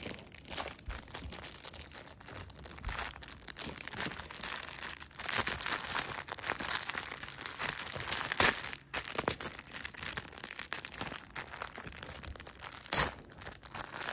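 Plastic packaging crinkling and tearing as a packet of stretchy, sticky toy chickens is opened, with a few louder rustles along the way.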